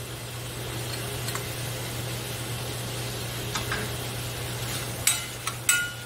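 Prawns and minced garlic sizzling in butter in a stainless-steel sauté pan. From about five seconds in, a metal spoon stirs them, clicking against the pan with short ringing clinks.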